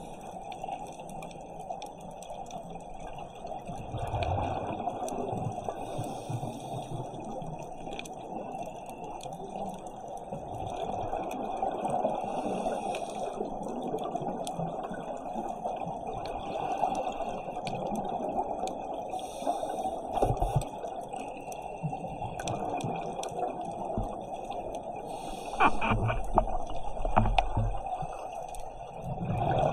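Underwater ambience picked up by a camera at a dive site: a steady muffled hiss, with scuba regulator exhalations bubbling and gurgling every several seconds, loudest near the end.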